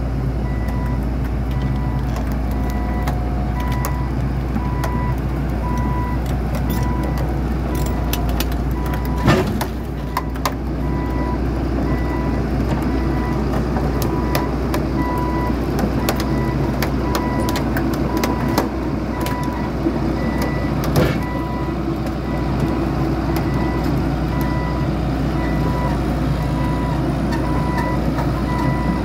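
John Deere 892 ELC excavator's diesel engine running steadily while the machine moves, with its travel alarm beeping in a regular pattern throughout. A few sharp knocks stand out, two around nine to ten seconds in and one around twenty-one seconds in.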